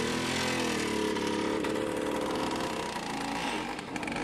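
Motor scooter engines running as the scooters pull away and ride past, the engine note dipping and rising with the throttle.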